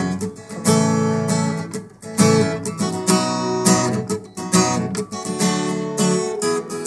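Acoustic guitar strummed in a steady rhythm, playing chords as an instrumental intro before the vocals come in.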